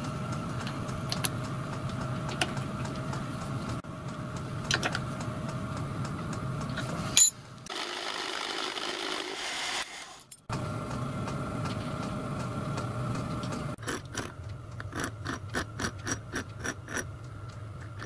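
Milling machine running with a single-point fly cutter cutting the teeth of a small 27-tooth gear held in a dividing head: a steady motor hum with a couple of held tones and occasional clicks. Near the end comes a quick run of light metallic clicks, about four a second, as a small lathe back-gear cluster is turned by hand and its gears mesh.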